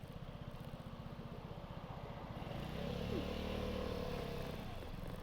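Vespa scooter engine idling with an even low pulse. About halfway through, a louder, pitched engine sound swells in and eases off again near the end.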